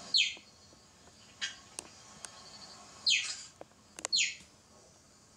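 Cheetah chirping: three short, high calls, each falling in pitch, with a fainter one between the first two.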